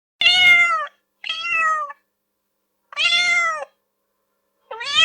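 A cat meowing four times in a row, each meow under a second long and dipping in pitch at its end.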